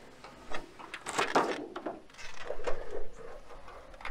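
Clear plastic cover of a homemade foil-lined solar oven being handled and lifted off the pot: rustling plastic with scattered clicks and knocks, densest in the first two seconds.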